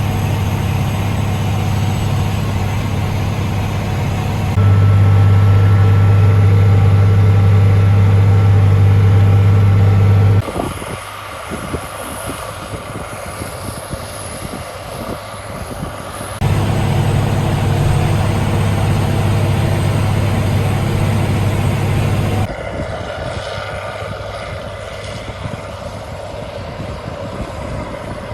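Challenger 875C tractor's engine running steadily under load while pulling a Gaspardo Diablo 600 subsoiler: a loud, even drone. It drops away to a quieter, noisier sound from about ten to sixteen seconds in and again from about twenty-two seconds on, as the shots change.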